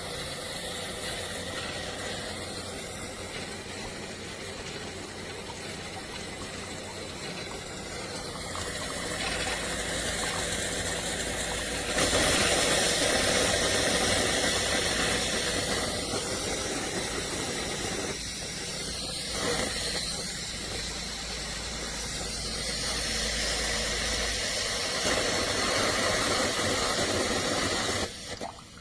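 Hamilton Beach FlexBrew Trio coffee maker brewing, with a steady hiss of hot water and steam. It gets louder about twelve seconds in and cuts off suddenly near the end as the brew finishes.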